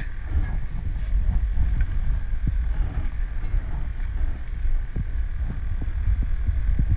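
Wind buffeting the microphone on a small boat at sea, a heavy uneven low rumble, with a few light knocks.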